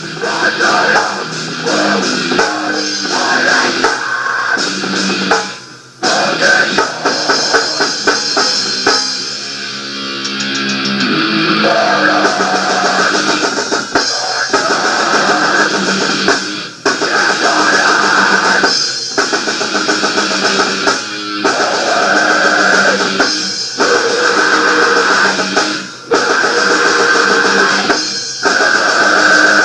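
Rock band demo recording: guitar and drum kit playing together, with almost no low bass. The band breaks off in short full stops about six, seventeen and twenty-six seconds in. The drums drop out for a moment around ten seconds, leaving held guitar notes, before the full band comes back in.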